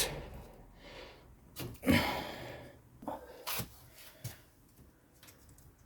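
A short, loud breath about two seconds in, among a few light clicks and knocks of small parts being handled.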